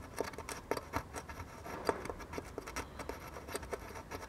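Metal probe tip scratching and tapping at a surface-mount component on a circuit board crusted with leaked capacitor electrolyte, making a string of small, irregular clicks and scrapes.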